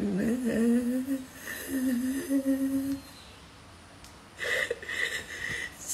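A woman crying, with long wavering moaning sobs for about three seconds, a short pause, then another brief sob about four and a half seconds in.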